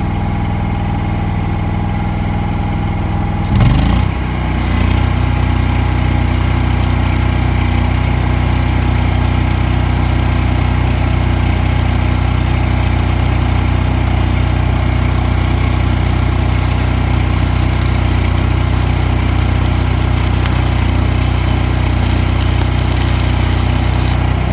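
Champion Elite engine-driven welder running; about three and a half seconds in an arc is struck with a 6010 rod, the engine picks up under the welding load and the arc keeps up a steady crackling hiss over it.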